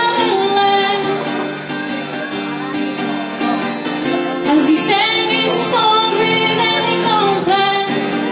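A woman singing live while accompanying herself on a strummed acoustic guitar.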